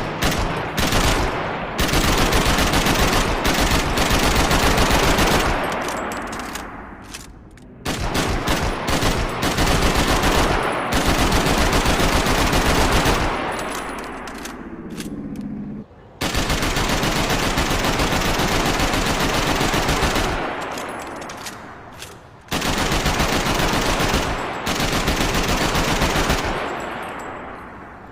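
AK-47 assault rifle firing on full auto: a few single shots, then four long bursts of rapid fire, each trailing off into a fading echo.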